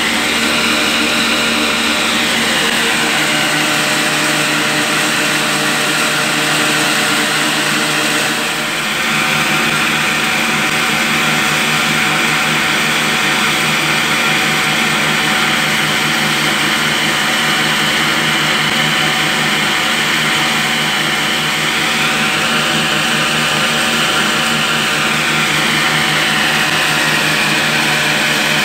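Belt-driven wheat flour mill (chakki) running, driven by a 20 HP electric motor: a steady hum with a dense grinding whir, and a high whine that slowly sinks and rises in pitch a couple of times.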